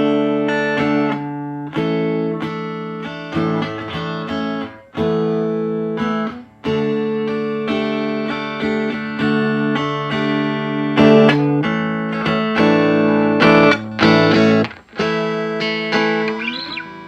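Electric guitar played through a 5F6A tweed Bassman-circuit valve amplifier: chords struck one after another and left to ring and fade, with a few short breaks between them. It dies away near the end.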